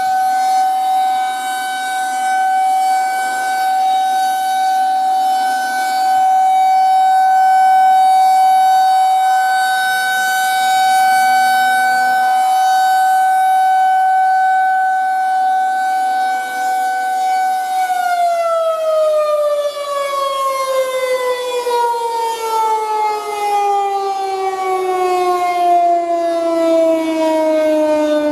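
Federal Signal 2001-130 electromechanical rotating siren sounding its steady one-minute alert tone as the horn turns. About eighteen seconds in it is switched off and winds down, its pitch falling steadily to the end.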